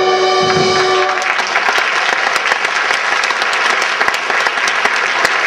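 The closing held chord of the sung chorus and pit orchestra ends about a second in, and a theatre audience breaks into sustained applause.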